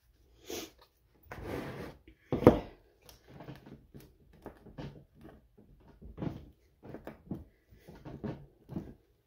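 Handling sounds from a plastic bath bomb mold on a wooden table: a rustling scrape, one loud knock about two and a half seconds in, then a run of lighter taps and clatters.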